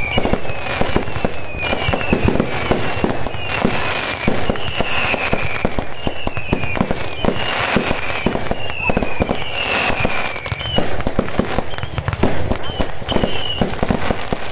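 Fireworks going off: a dense, continuous crackle of sharp pops and bangs, with short falling whistles about once a second above it.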